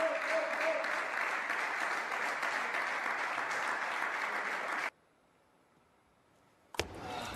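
Applause from the hall after a point in a table tennis match. It cuts off suddenly about five seconds in, and after a short near-silent gap a sharp click brings back the hall sound near the end.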